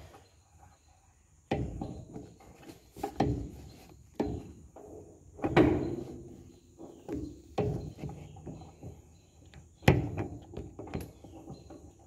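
Metal clunks and scrapes from a Krone KR 125 round baler's PTO driveshaft as its yoke is worked onto the tractor's PTO stub: about eight sharp knocks, each dying away quickly, irregularly spaced a second or two apart.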